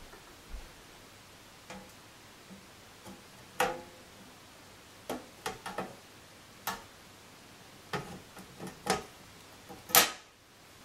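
A glass pane being laid into a wooden picture frame and pressed into place by hand: about a dozen light knocks and clicks at irregular intervals, the sharpest about ten seconds in.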